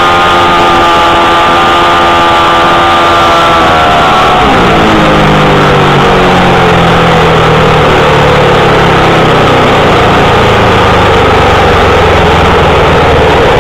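Speedway motorcycle engine heard loud from an onboard camera on the bike: held at high, steady revs, then about four seconds in the revs drop sharply and the engine note keeps falling slowly as the bike slows, smearing into rushing noise toward the end.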